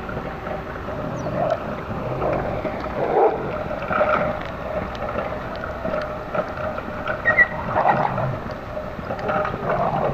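Two-wheeled hand cart carrying a 48-litre water canister rolling along an asphalt road, its wheels making a steady rumble with some creaking.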